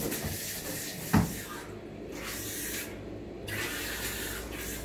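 Water hissing from a dog-grooming tub's hose nozzle held into a wet, curly coat to rinse out conditioner. The hiss drops out briefly twice, and there is a dull thump about a second in.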